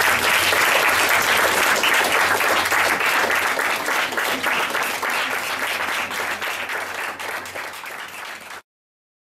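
Audience applauding, the clapping slowly dying down, then cut off abruptly near the end.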